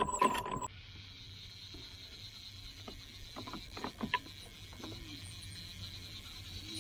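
Fishing reel being cranked, giving a few faint clicks over a steady hiss.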